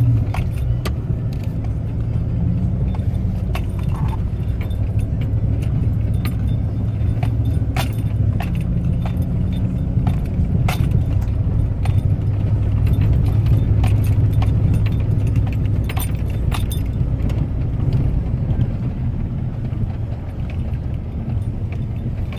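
Vehicle engine running steadily with a low rumble, with light irregular rattling clicks throughout.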